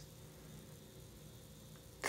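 Near silence: faint steady hiss and hum of room tone in a pause between narrated words.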